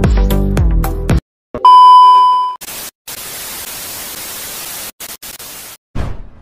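Electronic background music with a steady beat that cuts off about a second in, then a loud steady electronic beep lasting about a second, followed by about three seconds of hissing TV-style static with a few brief dropouts: an edited transition effect. A short low burst of sound comes near the end.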